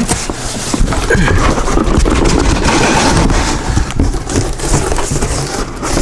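Cardboard packaging being handled and pulled open: a run of rustling and scraping.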